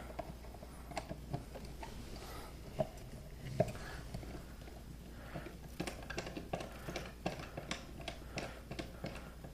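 Scattered faint clicks and light scrapes of a screwdriver backing out a wall outlet's mounting screws and the outlet being worked loose in its metal box, busier in the second half.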